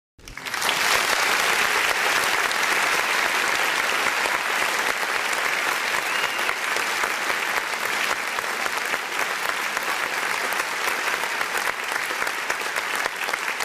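Dense audience applause: many hands clapping at once. It starts abruptly and holds an even level.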